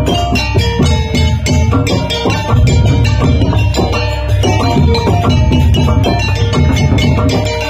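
Loud live Javanese gamelan music: kendang hand drum and low drum strokes under rapid, ringing notes from struck metallophones in a steady driving rhythm.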